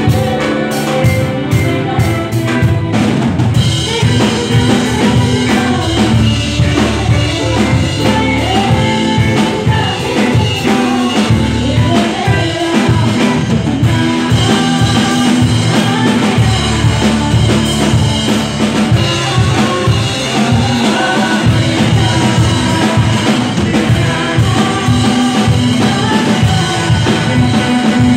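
Live band playing a pop-rock song: a drum kit keeping a steady beat under electric guitar and keyboard, with singing.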